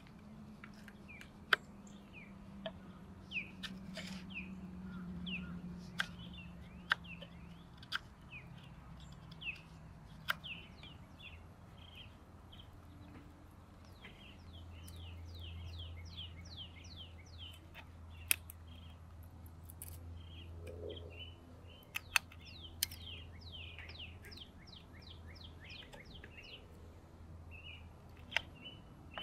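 A knife blade cutting into a green wooden stick while carving a notch, giving sharp clicks every few seconds, over small birds chirping throughout.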